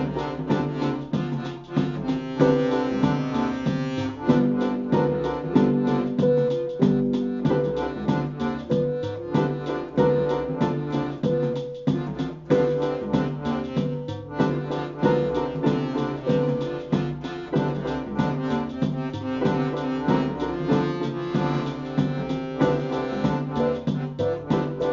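Live music: accordions holding chords and short melodic notes over keyboard and a fast, even sequenced beat of clicks.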